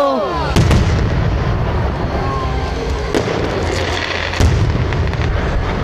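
Aerial fireworks display: a whistle fades out at the start, shells burst with deep booms about half a second in and again after about four and a half seconds, and there is a sharp crack in between over continuous crackling.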